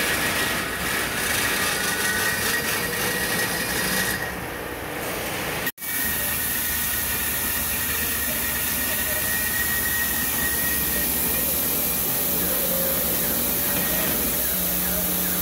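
Truck front wheel spun up to speed by a portable on-vehicle wheel balancer for balancing: a steady whirring rush with a faint high whine. It drops out abruptly for a split second about six seconds in.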